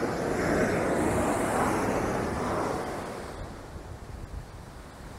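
Ocean surf washing up a sandy beach: a wave swells in over the first few seconds, then fades away as it runs back. There is some wind on the microphone.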